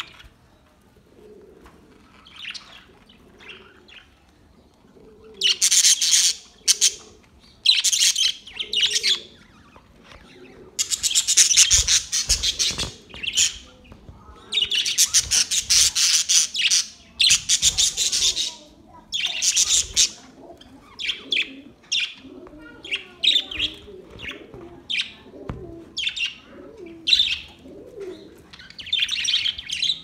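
A flock of budgerigars chattering and warbling in loud stretches of a second or two, with short pauses between. The first few seconds are quieter.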